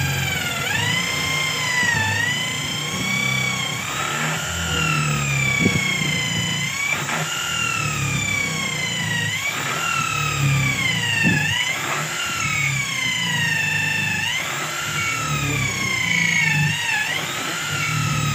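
Corded electric drill boring a long bit down through a wooden plank. Its motor whine repeatedly sags in pitch as the bit bites under load, then climbs back as it frees.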